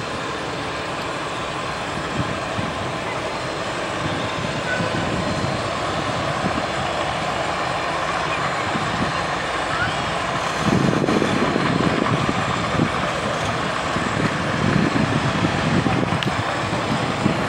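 Propeller aircraft engines running, the noise building steadily, with a heavier low rumble setting in about eleven seconds in.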